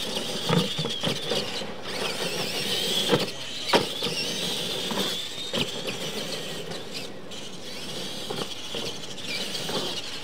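Electric RC monster trucks racing on a dirt track: the high whine of their motors and gears wavers up and down in pitch with the throttle, with a few sharp knocks.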